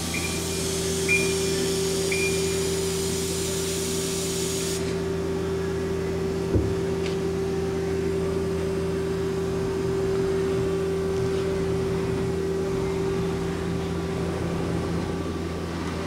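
Mazak Quickturn Nexus 250-II CNC turning center running under power while its axes are jogged: a steady machine hum. A hiss cuts off suddenly about five seconds in. There are three short high beeps in the first two seconds and a single knock a little later.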